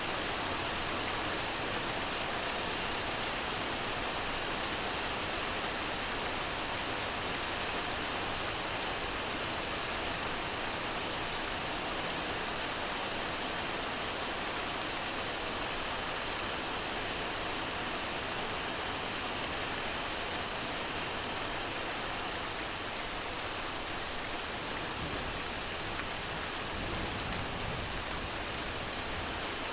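A steady, even rushing hiss, like heavy rain, with fine crackle in the highs.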